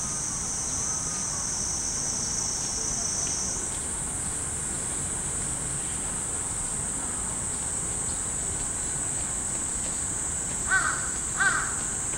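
A chorus of cicadas droning steadily at a high pitch, shifting slightly higher about four seconds in. Near the end a crow caws twice in quick succession, the loudest sounds.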